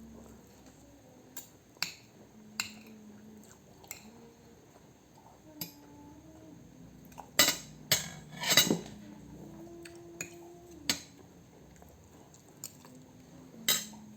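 Cutlery clinking and scraping against a plate while eating: scattered sharp clicks, with a louder flurry about halfway through and one more loud clink near the end.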